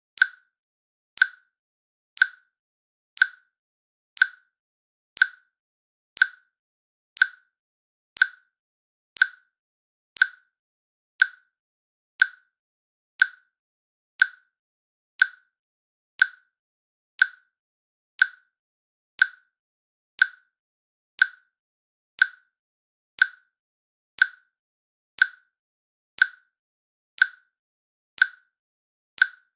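Countdown timer's click sound effect, one short, slightly pitched click every second at a steady pace.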